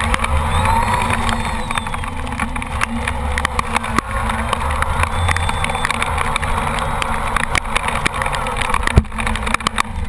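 Traxxas Summit RC truck driving over wet ground, heard close up from a camera mounted on the truck: a steady drone from its electric motor and drivetrain, with many sharp clicks and knocks.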